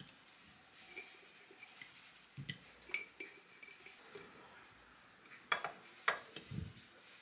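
Light clinks and taps of kitchen dishes and utensils being handled, a few sharp ones in two clusters with a couple of soft thumps among them.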